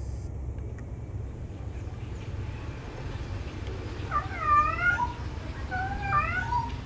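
Domestic cat calling for a mate, two drawn-out yowls that waver up and down in pitch: one about four seconds in and a second just before the end.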